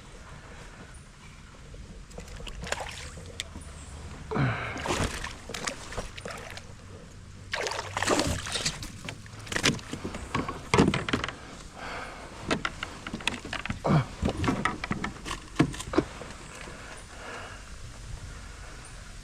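Water splashing and sloshing around a small boat as it is paddled, in irregular strokes through the middle, over a steady low rumble.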